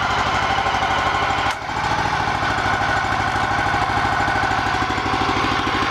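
The Honda gas engine of a BCS 770 Hydro walk-behind tractor running steadily, with an even, fast firing rhythm and a brief dip in loudness about a second and a half in.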